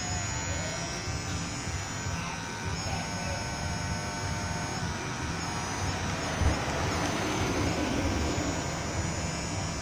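Remote-control CAT model excavator's small electric motors whining as its upper body swings round, the whine starting and stopping, over a steady low rumble. A single knock about six and a half seconds in.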